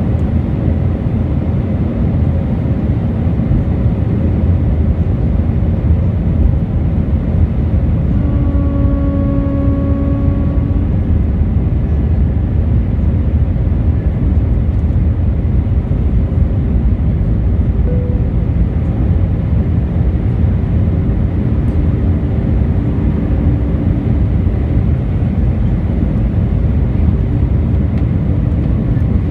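Steady low rumble of an Airbus A319's cabin on final approach, from engine and airflow noise. About eight seconds in, a humming tone with overtones rises out of it for about three seconds. Fainter brief tones follow later.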